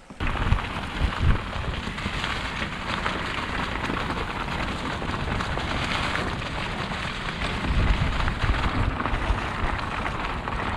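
Wind buffeting the camera microphone over the noise of mountain-bike tyres rolling fast along a dirt trail, starting suddenly at full loudness with gusty low rumbles.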